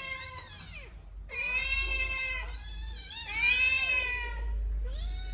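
Baby kittens meowing in long, wavering high-pitched cries while they wrestle each other. One cry ends about a second in, a long one follows after a short gap, and another begins near the end.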